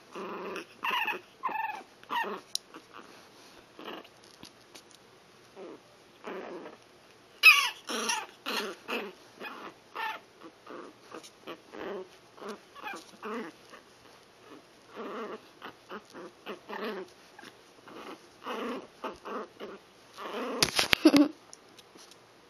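Young Shih Tzu puppies whimpering and squealing in many short cries, louder about seven seconds in and again near the end.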